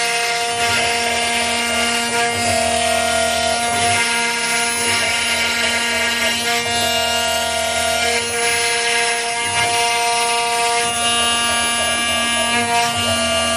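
CNC router spindle running with an end mill carving letters into plywood: a steady whine of several held tones over the rasp of the bit cutting wood, which swells and eases as the tool moves through the cut.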